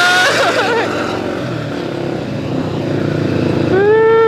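A bus air horn blown twice: one blast is already sounding at the start and ends under a second in, and a second blast comes near the end. Each note slides up as it starts and drops in pitch as it dies away, over a steady engine and road drone.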